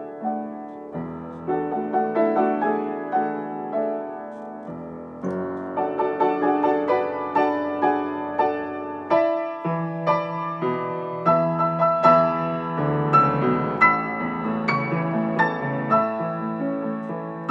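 Solo piano playing held low chords under a moving melody, with notes struck two or three times a second. The playing grows fuller and busier after about five seconds.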